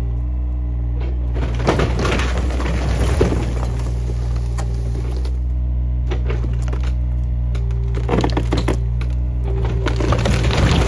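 New Holland mini excavator running steadily while its bucket tears apart an old wooden barn: repeated bursts of cracking, splintering boards and breaking shingles, several times over.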